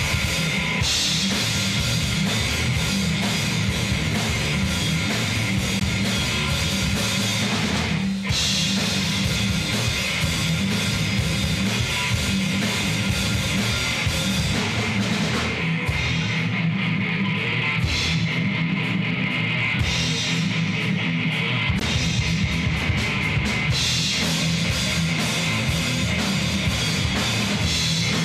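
Live heavy metal band playing: electric guitars, bass and drum kit, with a brief break about eight seconds in.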